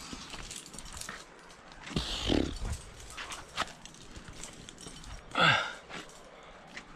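Scattered clicks and scuffs of a climber jamming up a granite crack with a trad rack on his harness, and a short vocal sound that falls in pitch about five and a half seconds in.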